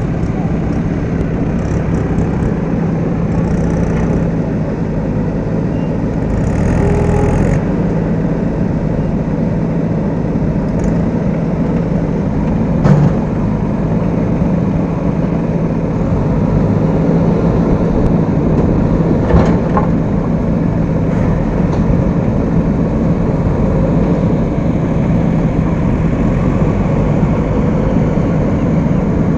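Diesel engines of JCB backhoe loaders and a tractor running steadily at work, with a couple of sharp knocks.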